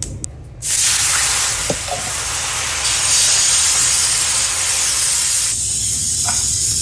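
A gas stove's igniter clicking a few times in quick succession, then stopping about half a second in. A loud, steady hiss then starts abruptly and holds, which the listeners take for something cooking on the stove.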